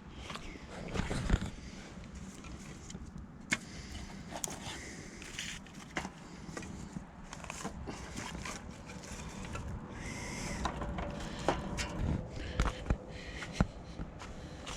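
Irregular knocks, clicks and rustling as a person moves about and handles things, with a few sharp clicks standing out about a second in, in the middle and near the end.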